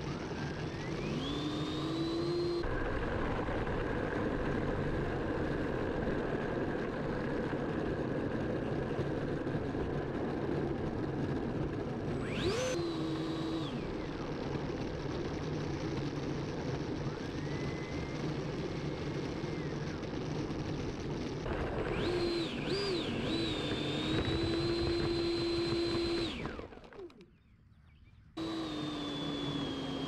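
Electric ducted fan of an Avanti V3 RC jet whining over a steady rush of air, its pitch rising and falling with the throttle. There are several throttle bursts, the longest near the end at high power. Then the sound cuts out abruptly for about a second and the fan whine comes back.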